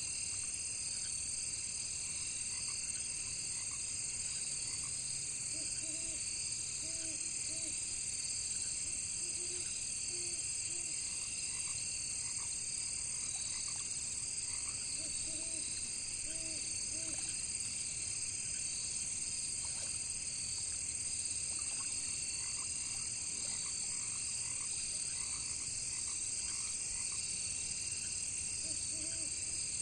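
Steady, high-pitched chorus of crickets and other insects, with frogs croaking in short runs of a few low notes several times.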